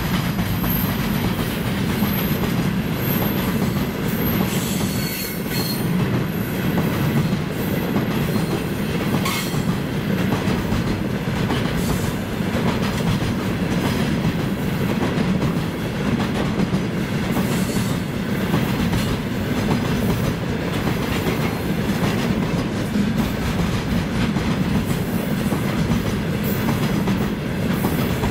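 Freight train of container flatcars rolling past: a steady rumble of steel wheels on rail with irregular clacks over the rail joints.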